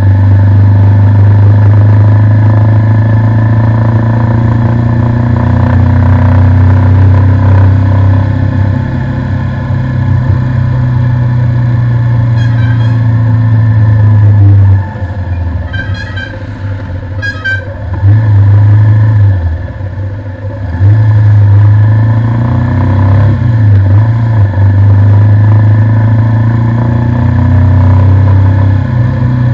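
Bajaj Avenger motorcycle's single-cylinder engine running on the road, easing off twice about halfway through. Three short vehicle horn toots sound over it around the middle.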